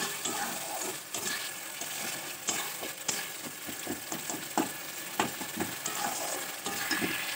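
A spatula stirring and scraping a thick tomato and pea masala in a kadai, with many short scrapes over a steady sizzle of frying.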